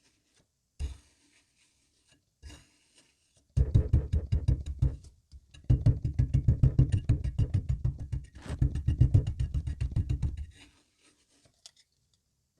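Crunchy kinetic sand being cut: a couple of single soft knocks, then three long runs of dense, rapid crackling as the sand breaks apart.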